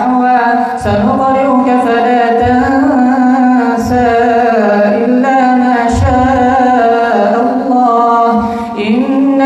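A single man's voice chants Quran recitation in a slow, melodic style, holding long drawn-out notes and pausing briefly for breath twice.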